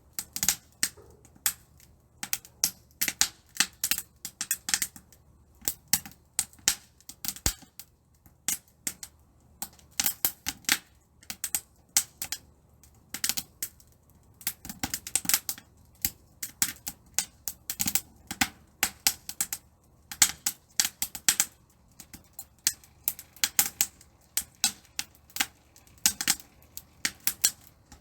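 Wood fire crackling in a titanium camp stove: rapid, irregular sharp snaps and pops in clusters.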